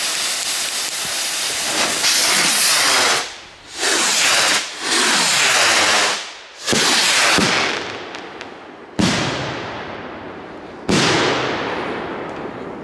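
Large firework rockets: fuses sparking, then loud rushing hisses as the rocket motors lift off, and then two sharp bangs about two seconds apart, each trailing off in a long echo as the shells burst overhead.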